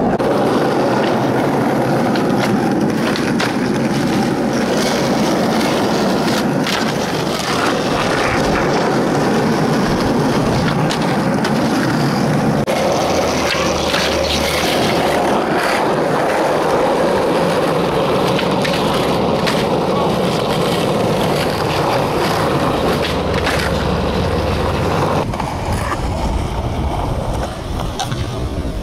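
Skateboard wheels rolling on rough asphalt, a steady loud grinding rumble, broken by several sharp clacks of the board's tail popping and the board landing.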